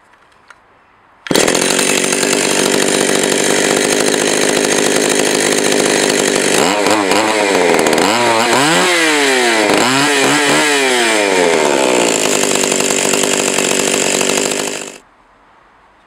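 Stihl 020 two-stroke chainsaw running at high revs, its pitch dropping and climbing back several times in the middle as the throttle is eased and reopened, then cutting off suddenly near the end. The saw is being run to test its chain oiler, which is delivering no bar oil.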